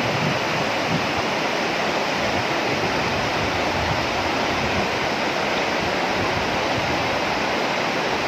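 A muddy flash flood in a mountain river channel, a steady, unbroken rush of churning water.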